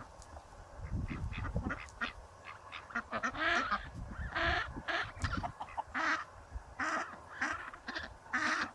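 Farm poultry calling: a run of short, repeated calls, about one or two a second, starting about three seconds in, after some low thuds.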